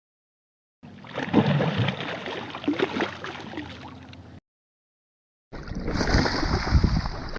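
Fish splashing and sloshing in water, in two separate bursts: the first runs about three and a half seconds, and the second starts about five and a half seconds in and is cut off at the end. Both bursts start and stop abruptly.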